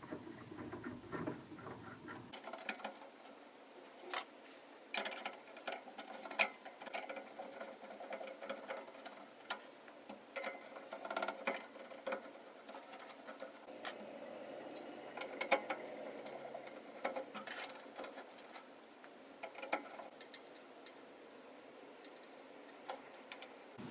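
A screwdriver backing screws out of the metal cable terminals on an LED display's power supply: scattered small clicks, taps and scrapes of metal on metal.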